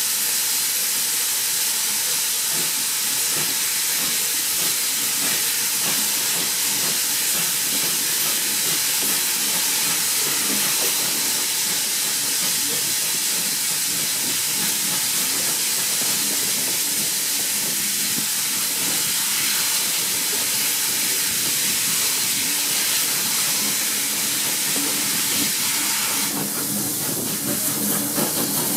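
GWR 8750 Class 0-6-0 pannier tank 4612 working a train, heard from the carriage right behind it: a steady, loud hiss of steam. Near the end a lower rumble joins in.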